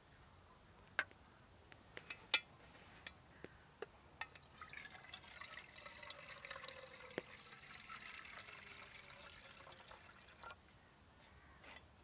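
A few sharp clicks, then liquid poured steadily for about six seconds, starting about four and a half seconds in, with a faint tone that falls as it runs.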